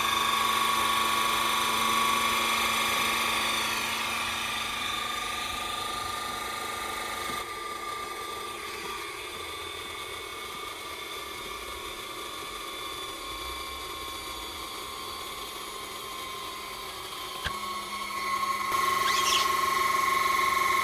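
Vevor 5-ton 12 V electric hydraulic car jack's motor-driven pump running steadily with a whine as it raises a car. It drops in level about a third of the way in and grows louder again near the end.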